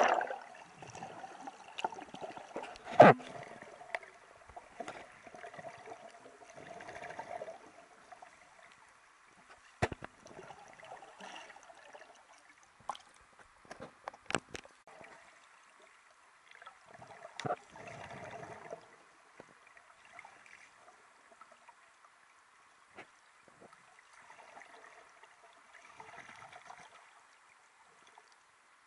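Sea water gurgling and splashing, uneven and in patches, with scattered sharp clicks and knocks; a loud one about three seconds in.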